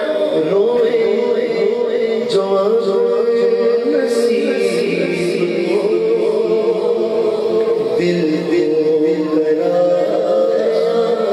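A man's voice singing a naat unaccompanied through a microphone and PA, in long held notes that waver in pitch.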